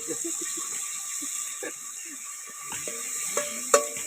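Food sizzling in a pan over the campfire, a steady high hiss, with small scrapes and a few sharper clinks of a utensil against the pan near the end.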